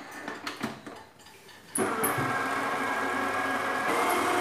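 Red stand mixer: a few clicks and knocks as the head is lowered into the bowl, then about two seconds in the motor switches on and runs steadily, the beater mixing cornstarch into sablé dough.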